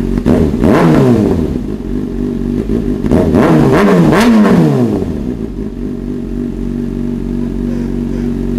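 Kawasaki ZX-6R 636 inline-four with an SC-Project GP70R slip-on exhaust, warmed up, idling and being free-revved: one rev about a second in, then two quick throttle blips a couple of seconds later, settling back to idle.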